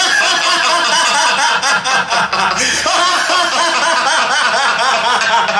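A man's loud, mocking villain's laugh from a recorded drama soundtrack, played over the show's loudspeakers.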